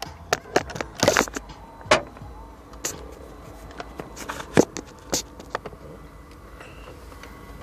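Handling noise from a phone being held and touched near its microphone: a run of irregular clicks and scrapes that thins out after about five seconds.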